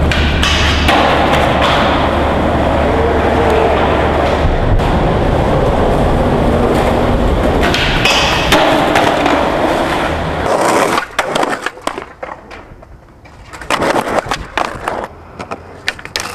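Skateboard wheels rolling loudly on concrete in an echoing concrete underpass, with two hissing stretches of the board grinding a metal stair handrail. About eleven seconds in the sound drops to quieter, separate sharp clacks of a skateboard popping and landing on pavement.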